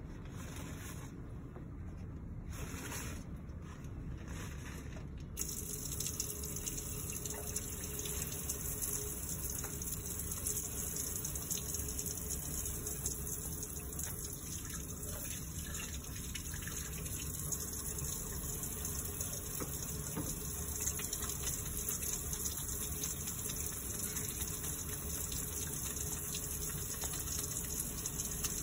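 Faucet running into a utility sink while hands are washed and lathered under the stream. The water comes on about five seconds in, then runs as a steady hiss.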